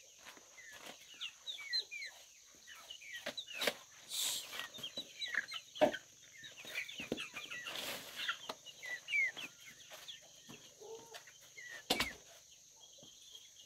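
A flock of young chickens making many short, high chirping calls, with a few sharp wooden knocks in between, one of them about twelve seconds in.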